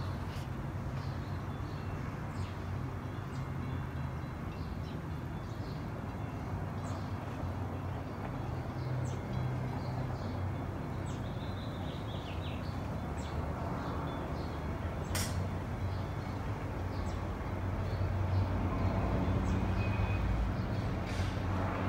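Steady distant low rumble of city and airport traffic, swelling slightly near the end, with small birds chirping now and then and a single sharp click about fifteen seconds in.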